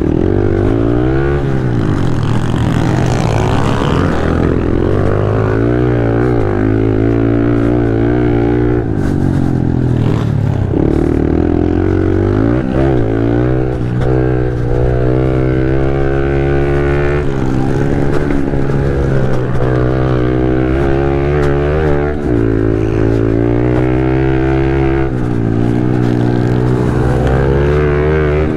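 Pit bike engine heard up close from on board, revving hard under race load, its pitch climbing and dropping over and over as the rider accelerates, shifts and backs off for corners.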